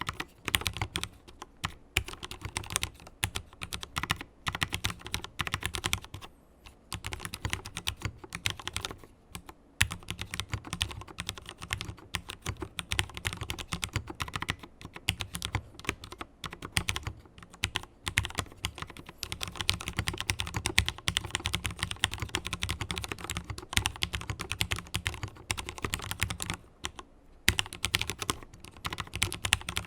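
Mechanical keyboard with fully lubricated Cherry MX Black linear switches being typed on quickly and continuously, a dense stream of key clacks that pauses briefly a few times.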